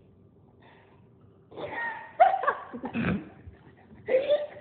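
Short wordless vocal reactions from a person, starting about a second and a half in and again near the end, with a rougher, lower sound near the middle.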